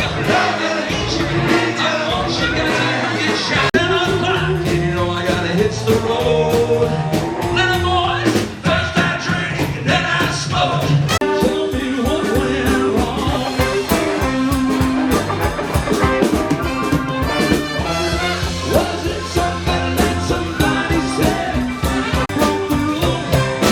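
Live band playing upbeat music, with a horn section over drums and bass; the drum beat becomes more prominent partway through.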